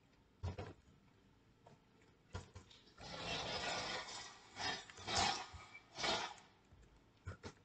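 A few isolated keyboard and mouse clicks while code is edited, with a rushing hiss lasting about a second and a quarter around three seconds in and two shorter, louder bursts of the same hiss about a second apart after it.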